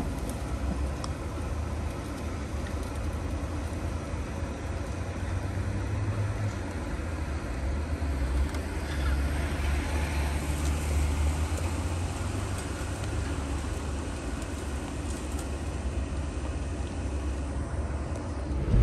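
A Jeep running at low speed on an off-road trail: a steady low engine and drivetrain rumble that swells a little midway.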